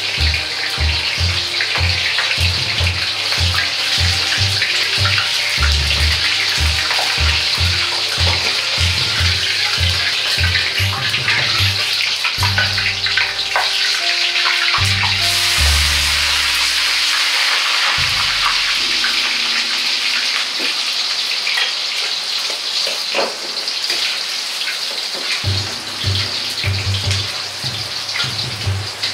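Hot oil sizzling steadily in a wok as pieces of food fry in it. Background music with a pulsing bass line plays throughout, its bass dropping out for a few seconds past the middle.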